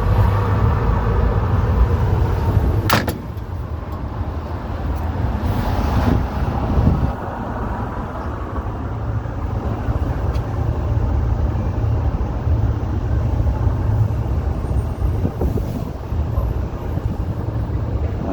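City street traffic: a steady low rumble of passing cars and other road vehicles, with a brief sharp click about three seconds in.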